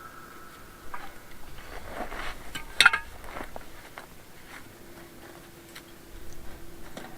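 Scattered light clinks and knocks of hard objects being handled, with one loud, sharp knock about three seconds in.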